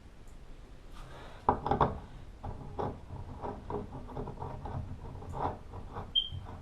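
Irregular small knocks, clicks and scraping as shower valve trim parts are handled and fitted by hand, loudest in a cluster of knocks about a second and a half in, with one short high squeak near the end.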